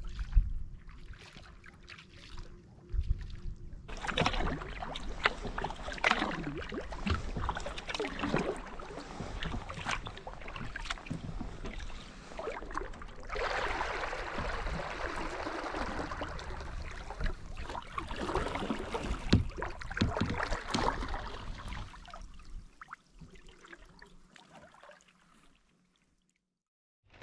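Kayak paddle strokes dipping and splashing through water, with bursts of rushing water, fading away near the end.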